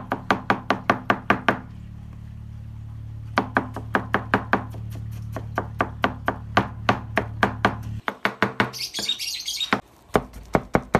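Kitchen knife chopping purple yam on a plastic cutting board: rapid, sharp strikes about seven a second in several bursts with short pauses, mincing the yam into a soft, sticky paste.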